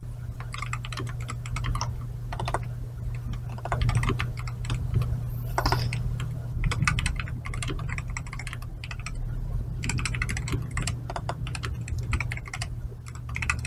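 Fast two-handed typing on a MAD 60 HE hall-effect (magnetic switch) keyboard with Magnetic Amber linear switches: a dense, irregular run of soft, slightly thocky keystrokes, like silent linear switches.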